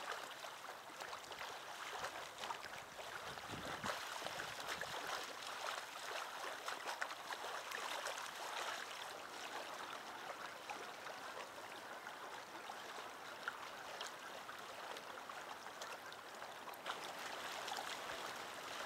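Small waves lapping against a rocky lake shore and concrete boat ramp: a steady splashing and trickling with a fine crackle of water on stones.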